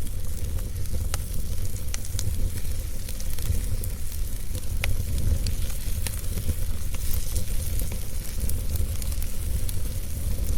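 Fire crackling, with scattered sharp pops over a steady low rumble.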